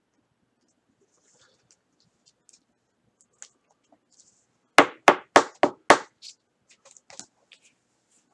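Five quick, sharp knocks about four a second, from card handling on a tabletop, followed by a few lighter clicks and taps.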